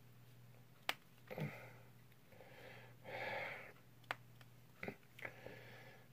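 Plastic press-and-turn child-resistant cap on a small tincture bottle being worked by hand without coming open. It gives a few sharp clicks, about a second in and again around four and five seconds in, with a couple of heavy breaths through the nose in between.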